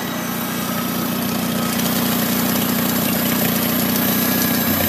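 1951 Farmall Cub's four-cylinder engine running steadily and smoothly just after starting, its note shifting lower near the end.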